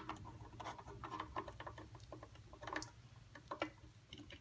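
Greased pulley bearing of an Atlas 73 drill press being worked by hand down into its bore in the head: faint, scattered light clicks and rubbing of metal on metal as it seats.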